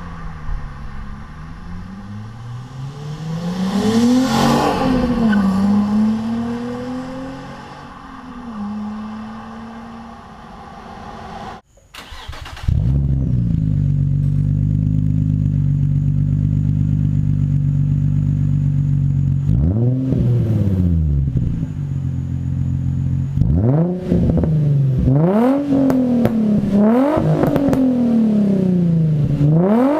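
A Nissan 350Z's 3.5-litre V6 on its stock exhaust with a washer mod, accelerating past with its engine note rising and falling through gear changes. Then the same engine idles steadily through a Megan Racing aftermarket exhaust. It is revved in sharp blips twice, and several more times in quick succession near the end.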